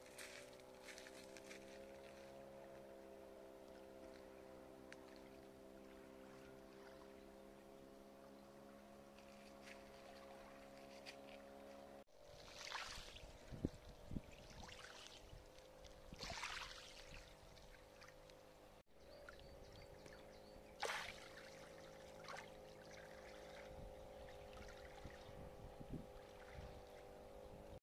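Faint steady low hum, like a distant motor, with soft water splashing and lapping at a shore. The splashes come in the second half, the loudest a couple of seconds after the middle.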